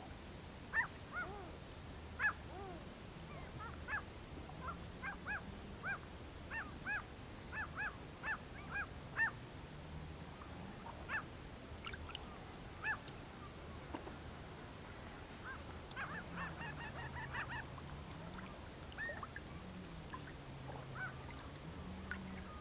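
Whooper swans calling with short, clear whooping calls, singly and in quick runs, growing into a dense chorus near the end, echoing across the lake.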